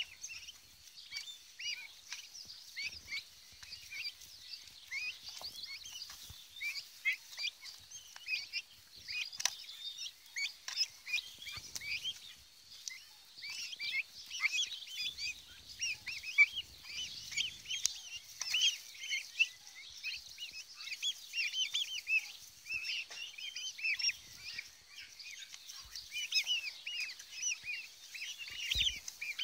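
A flock of Cröllwitzer turkey poults peeping: many short, high, overlapping chirps that rise and fall, without pause. A brief low bump sounds near the end.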